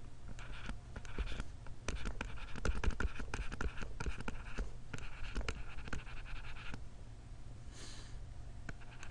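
Stylus writing on a tablet screen: a run of scratchy pen strokes and light taps as words are handwritten, fading to fainter taps near the end, over a steady low hum.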